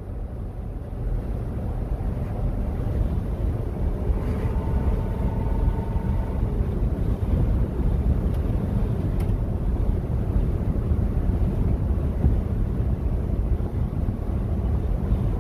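Ford F-350's 6.8-litre V10 with its catalytic converters removed, running under way and heard from inside the cab, mixed with wind rushing in through the open windows. The low exhaust drone grows louder over the first couple of seconds, then holds steady.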